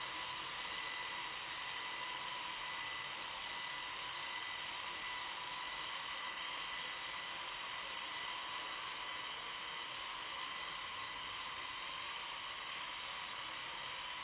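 Blade mQx micro quadcopter in flight, its four small motors and propellers giving a steady, even whine with a faint high tone running through it.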